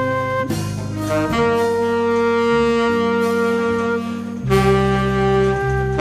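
A jazz group playing: saxophone and flute hold long notes together over an electric bass line, with the notes changing a few times.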